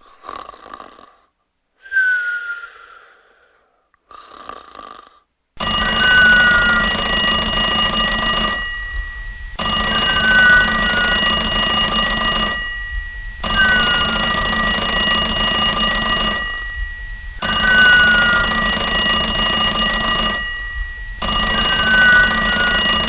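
A person snoring: a few quieter, broken breaths at first, then loud snores in a steady rhythm, about one every four seconds, each with a short falling whistle.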